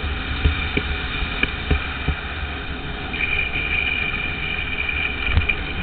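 Longboard wheels rolling fast on asphalt, a steady rumble with wind on the microphone and scattered sharp knocks from the road surface. A steady higher whine grows louder about halfway through as the board runs into a curve.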